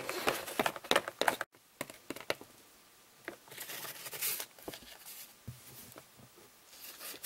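Handling noise from small plastic Littlest Pet Shop figurines being moved and set down on a toy set: quick clicks, taps and rustling, busiest in the first second and a half, then quieter scattered rustling.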